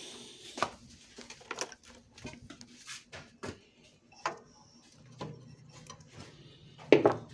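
Hands working inside a cup sealer's metal housing: irregular knocks and clicks of metal parts and wiring being handled, with one louder knock near the end. A low steady hum starts about five seconds in.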